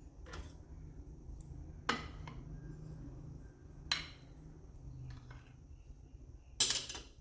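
A metal spoon clinking against a glass plate: about five light, sharp taps spread out, the loudest one near the end.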